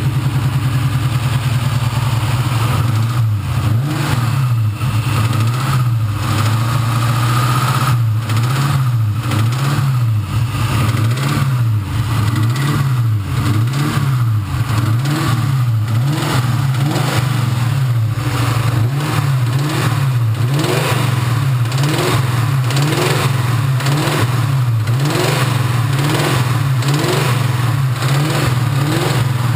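2003 Ford Mustang Mach 1's 4.6-litre DOHC V8 running, first steady, then from about three seconds in blipped over and over, the revs rising and falling roughly once a second. It carries an internal knock that the owner suspects could be a lifter or could be a rod bearing.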